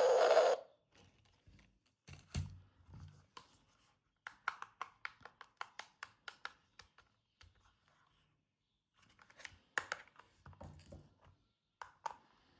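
Toy packaging being handled and opened: crisp clicks, snaps and tearing of cardboard and plastic, with a quick run of sharp clicks in the middle. A loud hissing noise cuts off abruptly just after the start.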